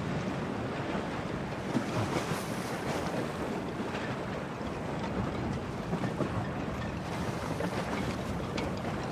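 Storm wind gusting and buffeting the microphone, with waves washing and splashing.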